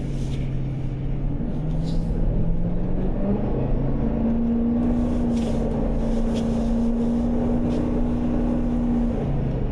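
Ford F350 truck engine under light throttle, its pitch climbing in steps over the first few seconds, holding steady, then dropping back near the end. The truck is accelerating gently on snow and ice, enough to slide it around into a donut.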